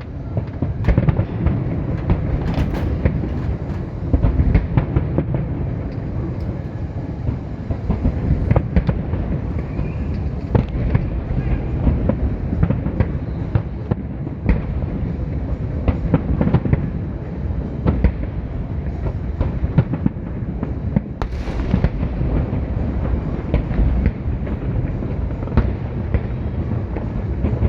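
A fireworks display going off continuously: a dense rumble of many overlapping bangs and booms, with sharper cracks scattered throughout.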